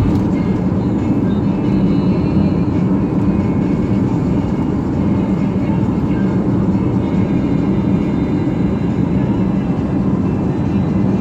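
Steady drone of a car cruising at freeway speed, heard from inside the cabin: engine and tyre road noise at an even level.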